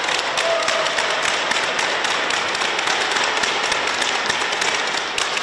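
Spectators applauding the end of a badminton rally: a dense burst of many hand claps that swells, holds steady and starts to fade near the end.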